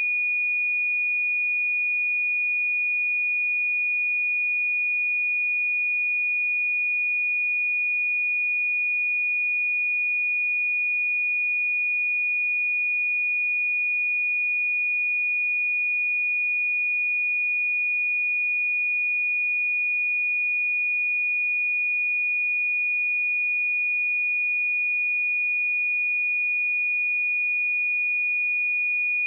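A pure 2454 Hz sine-wave test tone, one steady high-pitched note held at constant level.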